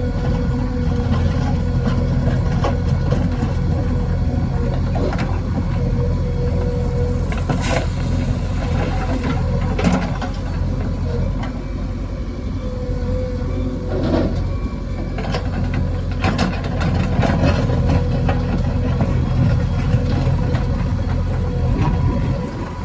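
Diesel engine of a JCB 3DX backhoe loader running steadily, with a mid-pitched whine that drops out for a few seconds in the middle and a handful of sharp clanks and knocks.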